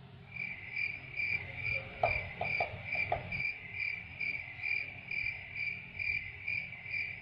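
Cricket chirping: one high chirp repeating steadily about two and a half times a second, with a few faint short tones behind it a couple of seconds in.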